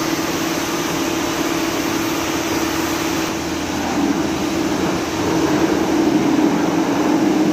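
High-pressure washer jetting water onto the underside of a raised car: a steady hiss of spray over the constant hum of the pump, growing a little louder about five seconds in.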